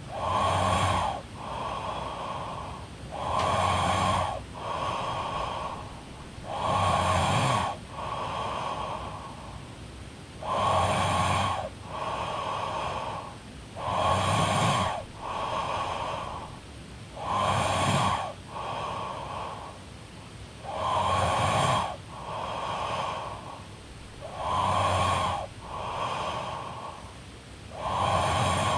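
A woman snoring in her sleep, in a steady rhythm of about one breath every three and a half seconds: each louder, rumbling snore is followed by a softer one.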